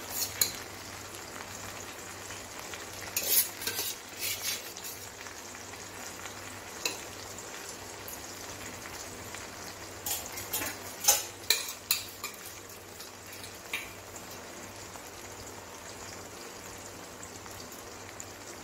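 A metal perforated ladle scraping and tapping against a steel pot as cooked basmati rice is spread in a layer. The scraping comes in a few short clusters over a steady hiss.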